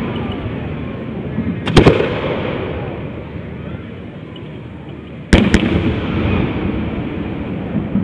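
Aerial fireworks shells bursting overhead: a quick pair of loud bangs about two seconds in and another pair a little after five seconds, each followed by a fading rumble of echo.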